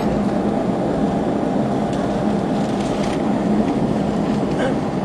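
Steady cabin drone of an Airbus A321's jet engines, heard from a window seat while the airliner taxis on the ground, with a constant low hum under it. A couple of faint ticks sound about two and three seconds in.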